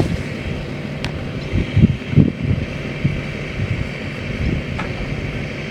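An engine running steadily, with gusts of wind buffeting the microphone, strongest around two seconds in.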